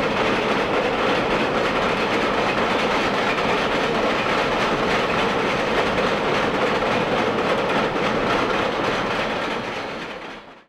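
Freight cars rolling across a high railway bridge: a steady noise of wheels on rail that fades out near the end.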